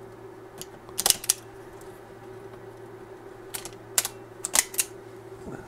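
Hand cutters snipping off zip-tie tails: a handful of short, sharp clicks, two close together about a second in and a quicker group of four between three and a half and five seconds in.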